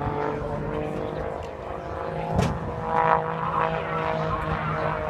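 Pitts Special aerobatic plane's piston engine and propeller droning steadily overhead, swelling briefly about three seconds in.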